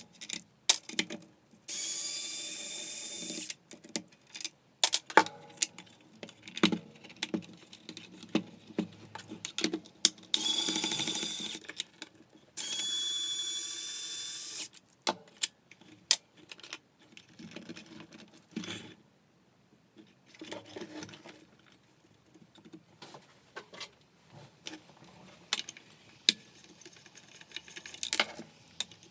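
Electric screwdriver motor whining in three short runs of about two seconds each, backing out screws while a belt sander is taken apart, with clicks and knocks of screws and hard parts being handled in between.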